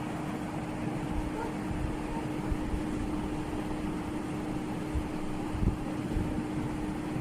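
Steady mechanical hum holding one constant tone over a soft even noise, with a few faint low knocks.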